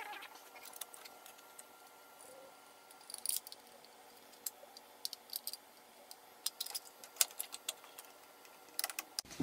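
Scattered light clicks and small rattles of an elliptical's handle arm and its screws being handled and fitted by hand, with a cluster about three seconds in and another near the end.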